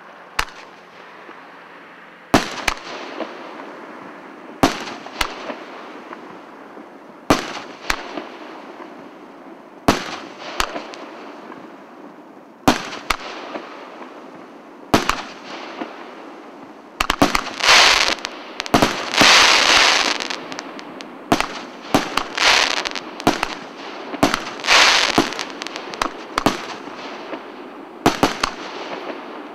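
CGF-1340 fireworks cake firing. For the first half it fires single shots about every two and a half seconds, each a pair of sharp reports. Just past halfway it breaks into a dense run of crackling bursts, then thins back to a few shots near the end.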